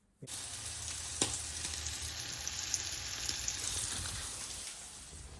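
Food frying in a pan, a steady sizzle with a single click about a second in, growing a little quieter near the end.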